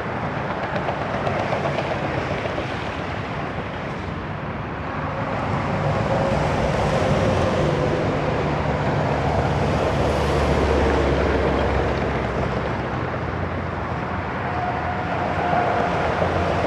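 Heavy highway traffic with commercial trucks passing: a steady wash of tyre and engine noise that swells as vehicles go by. It is loudest in the middle, with a deep rumble, and faint tyre or engine whines come and go.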